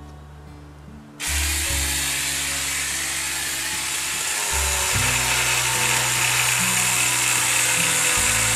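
A cordless power saw starts about a second in and runs steadily, cutting through the lower branches of a tamarack tree. Guitar music plays underneath.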